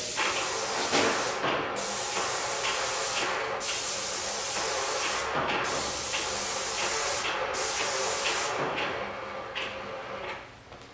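Paint spray gun hissing as it sprays primer onto cabinet doors in back-and-forth passes; the hiss cuts out briefly about every two seconds as the trigger is let off at the end of each pass, and fades near the end.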